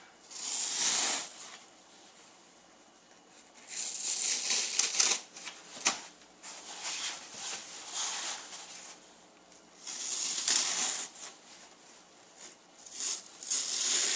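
Scissors cutting through a thick foam sponge sheet: about five runs of crisp, rasping snips, each about a second long, with pauses between them, and a sharp click about six seconds in.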